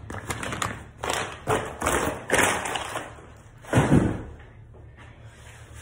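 Packing paper rustling and crinkling in quick bursts as it is handled and pulled from the box, then a single solid thump a little under four seconds in.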